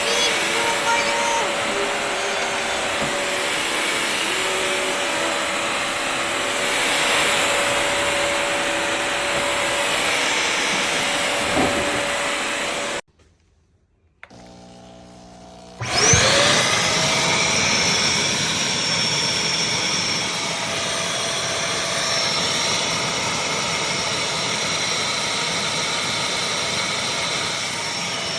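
Bissell CrossWave HydroSteam Pet wet-dry vacuum's motor running steadily. About halfway through it cuts off suddenly, then starts again a few seconds later with a rising whine and runs on steadily.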